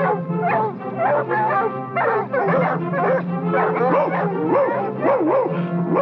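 A pack of cartoon hounds barking and baying together, many overlapping yelps and howls rising and falling in pitch, over background music with held low notes.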